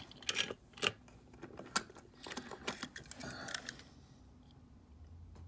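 Small die-cast toy trucks clicking and rattling as they are handled and set down on a tabletop: a quick, uneven run of small clicks for about four seconds, then it goes quiet.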